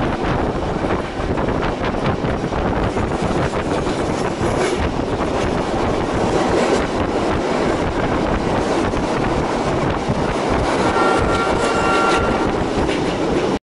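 Passenger train running, heard from inside the carriage: a steady rumble and clatter of wheels on the rails, with a faint steady high tone joining about eleven seconds in.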